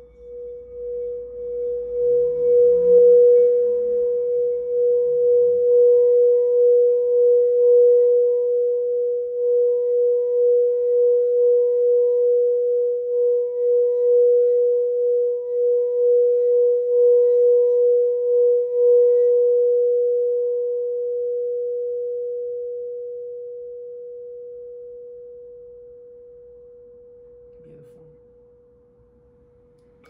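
Singing bowl rubbed around its rim with a wooden mallet: one steady ringing tone with a faint overtone above it and a wavering pulse, swelling over the first few seconds and holding. About two-thirds of the way in the rubbing stops and the bowl rings on, fading away slowly.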